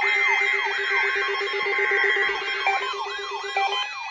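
Several weather alert radios sounding their alarms together, set off by the NOAA Weather Radio weekly test: a wailing tone that falls in pitch about two and a half times a second, over a rapid beeping that stops near the end, with steady tones layered in.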